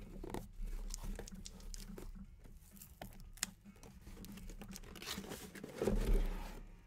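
Cardboard shipping case being opened by hand: flaps pulled back and boxes slid out, with scattered rustles, scrapes and taps of cardboard, louder and with a dull thud near the end.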